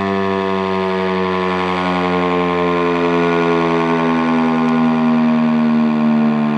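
ACA P-15 (Penetrator 15) eight-port rotating electromechanical civil defense siren sounding its test tone. It is a loud, steady, many-overtoned wail that sags slightly in pitch and swells a little toward the end as the rotating head turns.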